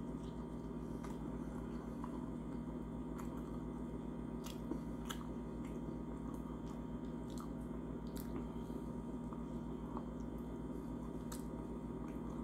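A man chewing a mouthful of Jamaican beef patty close to the microphone, with scattered small mouth clicks over a steady low hum.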